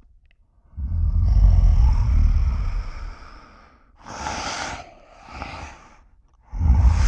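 Zilla Jr. monster sound effects: a long, deep roar, then two short breathy huffs, then another roar starting near the end.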